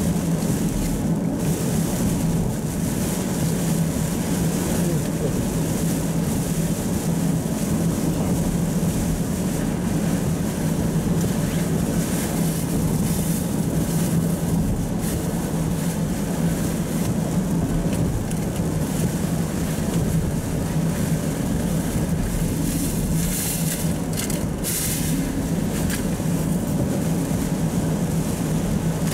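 Steady driving noise heard inside a car on a wet expressway in heavy rain: tyres hissing on the wet road over a low, even engine and road drone, with rain hitting the windshield.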